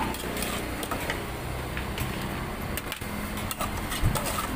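Metal spoon clinking and scraping inside an aluminium pot as a Thai yum salad is tossed and scooped out, in scattered clinks with the sharpest about four seconds in, over a steady low background rumble.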